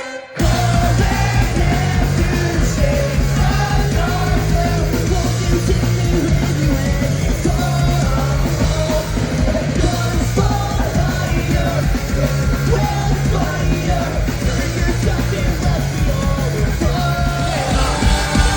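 Ska-punk band playing live at full volume, drums, bass and guitars under a lead vocal line; the band comes back in together right at the start after a brief stop.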